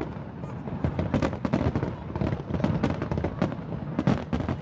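New Year fireworks going off in a rapid, continuous barrage of sharp bangs and crackles. The loudest clusters come about a second in and again near the end.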